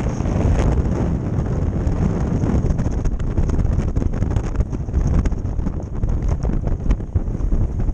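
Wind buffeting a helmet camera's microphone on a moving motorcycle: a loud, steady rumbling noise, with the bike's engine running underneath.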